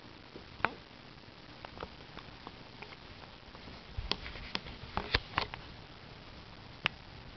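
A cat chewing a freeze-dried chicken treat: scattered sharp crunching clicks, with a run of louder clicks and knocks about four to five and a half seconds in.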